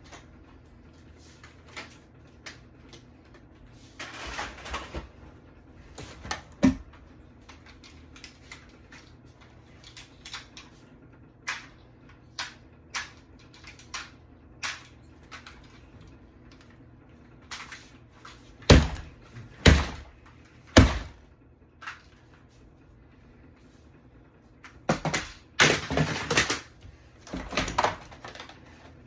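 Irregular clicks, knocks and short clatters of objects being handled, with three loud knocks about a second apart in the middle and a burst of louder clatter near the end.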